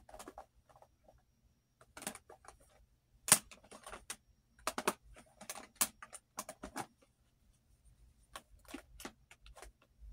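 Scattered clicks and taps of plastic makeup compacts and palettes being handled, opened and set down, with one sharper knock about three seconds in.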